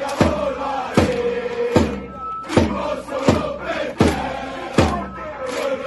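Football ultras chanting in unison, a massed male choir of supporters, over a drum struck on the beat: seven hits, one about every three-quarters of a second.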